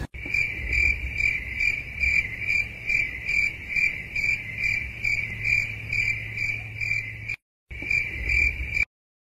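Cricket chirping: one high chirp repeating about twice a second, cutting out twice near the end. It is the stock 'crickets' effect laid over a silent office scene to mark the silence.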